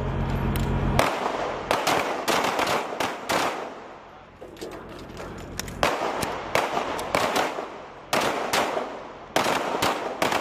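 Pistol fire on a firing line: strings of sharp shots, several close together, in four or five groups with short pauses between them.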